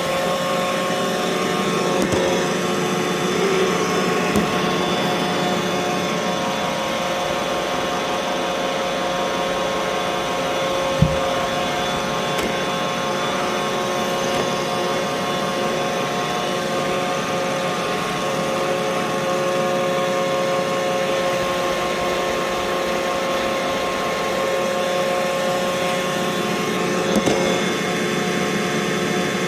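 Roomba robot vacuum running: a steady motor whir with a fixed whine, broken by a few short knocks, the sharpest about eleven seconds in.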